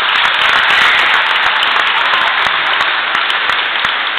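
Audience of schoolchildren applauding: many hands clapping, loud and steady.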